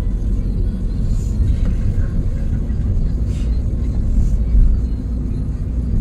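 Steady low rumble of tyre, wind and engine noise heard inside a car cruising on an expressway, with a few brief hissing swells.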